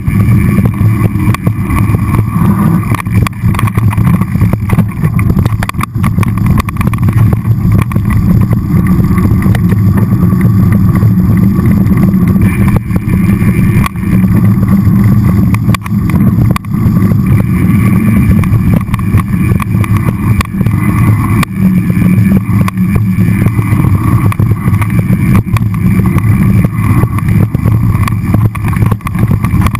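Mountain bike rolling down a dirt singletrack, heard through a mounted action camera: a loud, steady rumble of tyre and frame vibration and wind buffeting the camera, broken by frequent small knocks and rattles from bumps in the trail.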